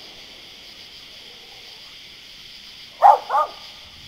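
A dog barks twice in quick succession about three seconds in, over a steady high hiss.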